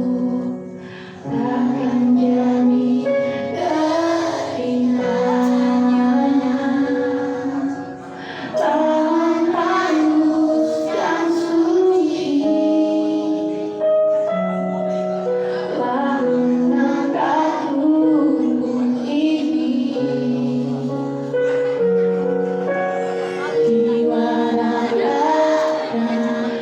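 A song: a voice singing over a musical accompaniment of long held notes, with short breaks between phrases.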